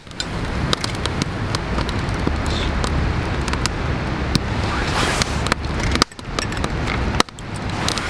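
Wood fire crackling in a stone fire pit, with many sharp irregular pops over a steady low rumble.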